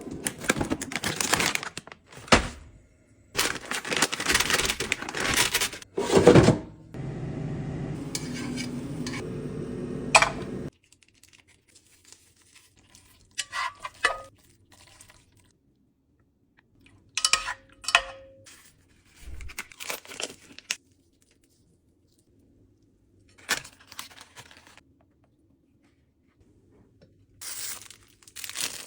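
Kitchen food-preparation sounds: packaging tearing and crinkling, and dishes and utensils clinking in a series of separate bursts. A few seconds in, a steady hum runs for about four seconds and cuts off suddenly.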